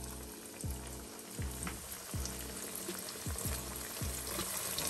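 Cassava bami flatbreads frying in hot oil in a pot, a steady sizzle. Background music with a regular bass beat plays under it.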